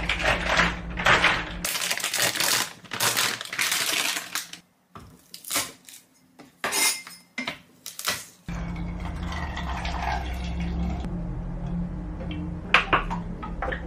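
Food-preparation sounds in a series of cuts: a few seconds of loud rustling noise, then several separate sharp knocks of a knife crushing garlic cloves on a plastic cutting board, then quieter handling of bottles with one sharp clink near the end.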